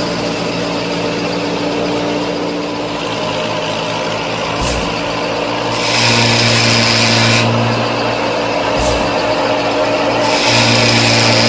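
Small electric motor of a DIY model machine running with a steady hum. The motor strains twice into a louder hissing whir lasting about a second and a half each, with two short low thumps between them.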